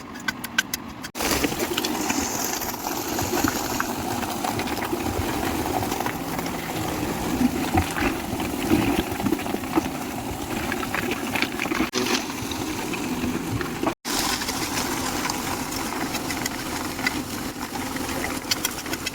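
An engine of construction machinery running steadily, starting abruptly about a second in and breaking off for an instant about fourteen seconds in.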